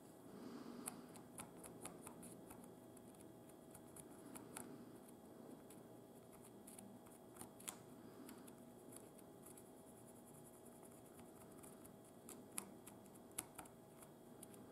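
Faint scratching of a pencil lead rubbed against a small plywood crank part, with scattered light clicks, as graphite is worked onto it as a dry lubricant.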